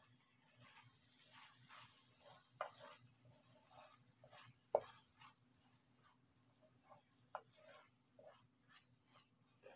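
Faint stirring of chopped cabbage with a wooden spatula in a metal frying pan: repeated short scrapes and light knocks of the spatula against the pan, the sharpest knock about halfway through.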